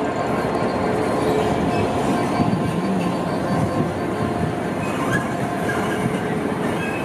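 Class 66 diesel-electric freight locomotive passing slowly, its two-stroke EMD V12 engine running steadily over the rumble of wheels on rail.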